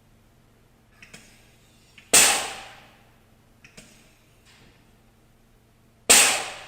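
Two loud, sharp impacts, about four seconds apart, each ringing out briefly in the shop, with a few small clicks and knocks between them over a faint steady low hum: tools and parts being struck or set down in a car repair shop.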